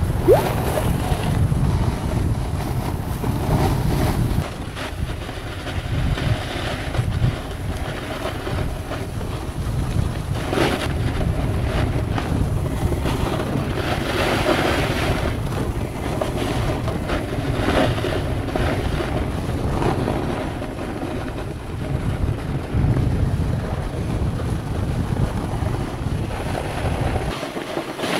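Wind buffeting the microphone during a run down a ski slope, over a steady hiss of snow under the rider's edges that swells now and then.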